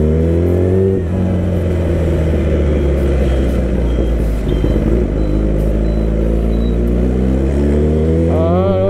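Kawasaki ZX-10R's inline-four engine pulling under way, climbing in pitch at the start. It dips briefly about a second in, then climbs steadily again through the second half.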